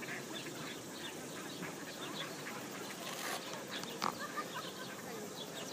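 Ducks and other birds calling around a pond: scattered short calls over a steady background hum, with one slightly louder call about four seconds in.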